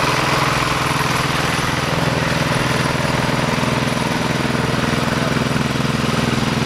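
Single-cylinder diesel engine of a two-wheel hand tractor pulling a loaded trailer, running steadily with a fast, even chugging.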